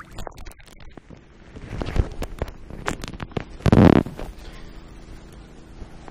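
Rustling and knocking of movement against a body-worn camera's microphone, with a swell of noise about two seconds in and a loud, deep rumbling burst of buffeting on the microphone near the four-second mark.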